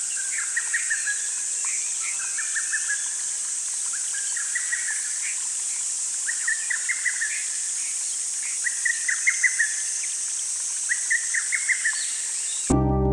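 Outdoor nature sound: a steady, high-pitched drone of insects, with a bird repeating a short phrase of quick chirps every couple of seconds. Music cuts in abruptly at the very end.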